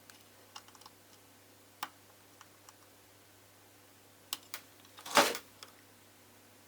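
Light clicks and taps of multimeter test probes on the transistor leads and the amplifier board during continuity testing, with one louder clatter about five seconds in.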